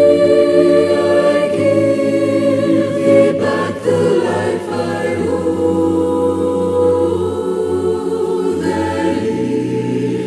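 Choir singing a slow hymn in long held chords, the harmony shifting to a new chord about three seconds in.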